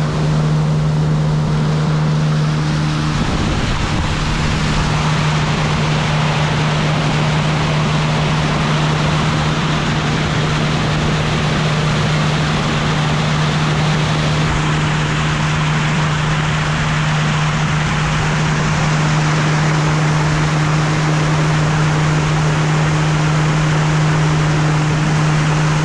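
Outboard motor driving a small boat at a steady cruising speed, holding one unchanging pitch, over the loud rushing hiss of water spray along the hull.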